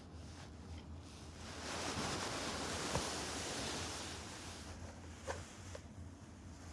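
Soft rustling and a few faint light taps from a cat moving about beside a plastic ball toy, over a low steady hum.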